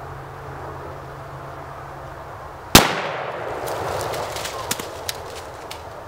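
A single .30-06 rifle shot about three seconds in, loud and sharp, its report dying away over a second or so. A few light ticks follow.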